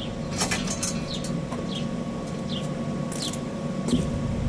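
A small bird chirping repeatedly, short high chirps falling in pitch, over a steady low hum, with a few sharp clicks about half a second in and near the three-second mark.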